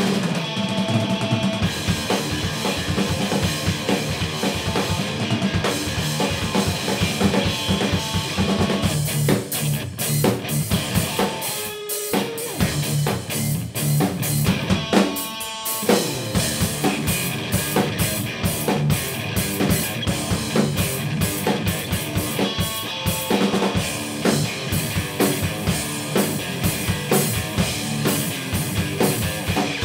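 Instrumental rock jam on electric guitar, bass guitar and drum kit, with busy kick, snare and rimshot strokes throughout. The low end drops out briefly twice, about twelve and fifteen seconds in.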